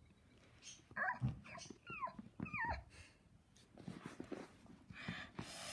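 Four short, high yelps that fall in pitch, dog-like whimpering, in quick succession starting about a second in, followed by a soft hiss.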